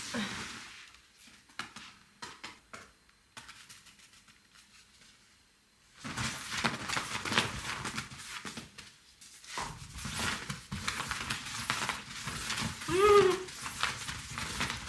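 Bedding rustling as a cat pounces and scrambles on a quilted mattress pad and duvet: a few soft rustles at first, then steady rustling and scratching from about six seconds in. Near the end comes one short call that rises and falls in pitch, the loudest sound here.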